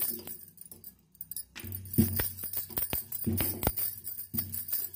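Bangles on the wrist clinking and jingling as a wooden rolling pin is pushed back and forth over puri dough, with a low rumble from the pin on each stroke, roughly one stroke a second.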